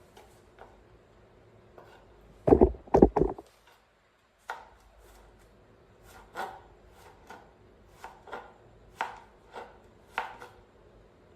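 Sharp knocks of a hard object on a surface. A quick cluster of three or four loud strikes comes about two and a half seconds in, followed by about ten lighter, irregularly spaced knocks.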